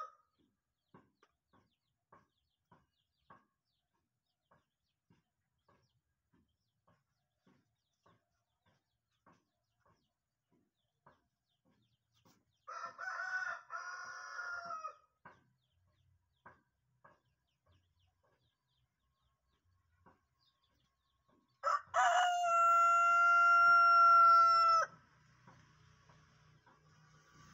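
A rooster crowing twice: a crow broken into several notes about thirteen seconds in, then a louder, long crow near the end, held on one steady pitch for about three seconds. This is the drawn-out crow sought in rooster crowing contests.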